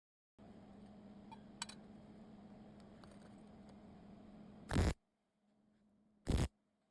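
Two brief, loud bursts of MIG welding arc crackle, about a second and a half apart, typical of short tacks struck on clean steel. Before them a faint steady hum with a few light ticks.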